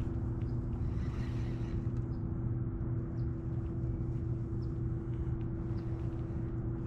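Steady low hum with two constant tones over a rumble, typical of an electric trolling motor running on a kayak, with faint small ticks now and then.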